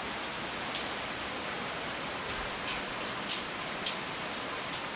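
Steady rain falling: an even hiss with a few scattered sharper drop taps.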